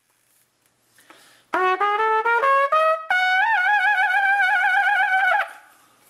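Trumpet playing a quick climbing run of short notes. It then holds a high note for about two seconds with a wavering shake (lip trill), which cuts off sharply near the end.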